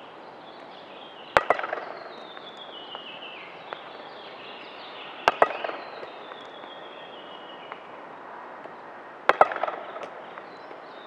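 Tennis racket hitting a vinyl ball in forehand strokes: three sharp hits about four seconds apart, each followed at once by a lighter tap.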